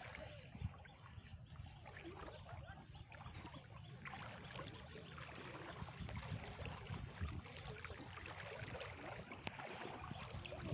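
Faint, steady trickle and wash of floodwater moving across a flooded road and fields.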